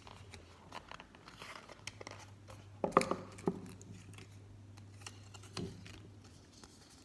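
Paper and cardboard packaging rustling and crinkling as the insert and paper packet of an iPhone 11 box are handled, with scattered light clicks and a brief cluster of sharper crackles about three seconds in.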